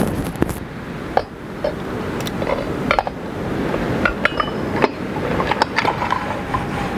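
Metal parts clinking and knocking as a hand-built engine and axle assembly is lowered into a motorcycle wheel's hub and fitted. There are several sharp clinks at irregular intervals, a few with a short ring.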